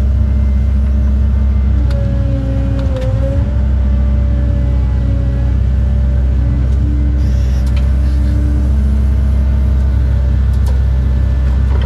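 Caterpillar 309 excavator's diesel engine running steadily under load, heard inside the cab, with the hydraulic tones wavering as the boom and bucket move. A few sharp clanks, and a short hiss as a bucket of dirt is dumped.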